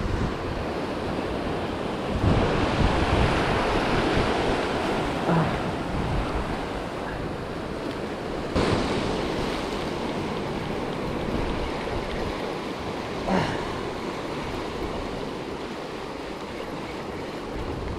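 Ocean surf breaking and washing around the boulders of a rock jetty, with wind on the microphone; a wave surges up about two seconds in. Two brief clicks sound, one near the middle and one later.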